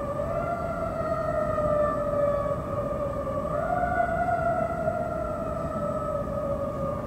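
A siren wailing slowly: its pitch rises a little twice, once just after the start and once about halfway through, and sinks gradually after each rise, over a steady low rumble.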